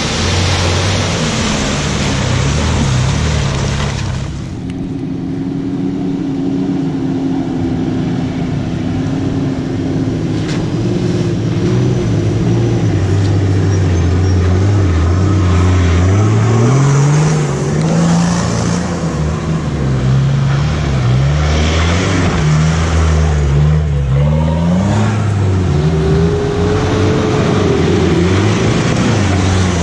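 Four-wheel-drive vehicle's engine revving up and down repeatedly, its pitch climbing and dropping again and again. A loud rushing noise sits over the engine for the first four seconds.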